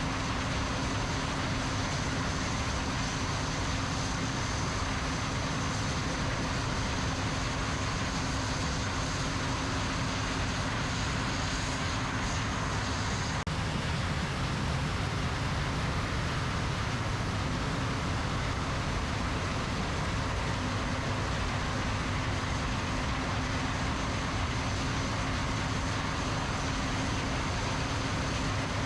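Combine harvester running steadily while harvesting corn: a constant engine and machinery drone with a steady hum and a high whine over it.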